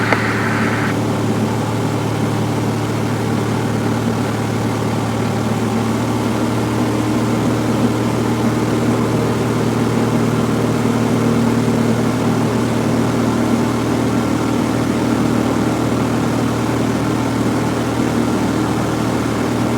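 Cessna 172F engine and propeller heard from inside the cabin, a steady drone at an unchanging power setting during slow flight. A short higher-pitched sound comes right at the start.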